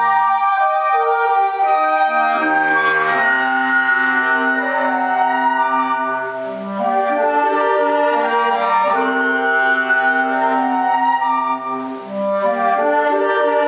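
Woodwind ensemble of flutes and clarinets with a bass clarinet playing held chords that change every second or two, with short breaks between phrases about halfway through and near the end.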